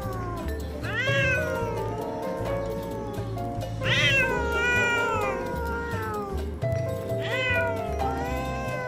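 Domestic cats caterwauling in a face-off: long drawn-out yowls that rise and then slowly sink, the loudest about four seconds in, with two more about a second and about seven seconds in.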